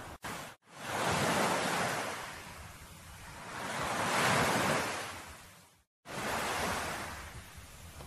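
Ocean surf washing in and drawing back, swelling twice a few seconds apart, with abrupt cuts in the sound about half a second in and again near six seconds.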